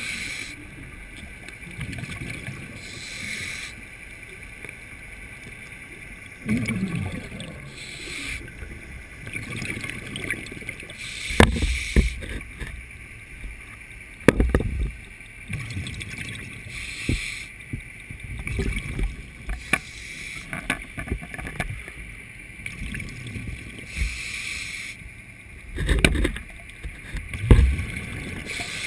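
Underwater sound of a diver breathing: a hiss on each inhale through the regulator and a bubbling rumble on each exhale, coming round about every five seconds, with a few sharp knocks.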